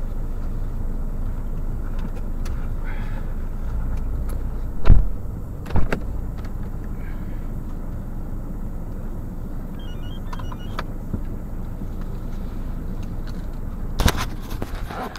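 Steady low vehicle rumble, with two sharp loud knocks about five and six seconds in and another knock near the end.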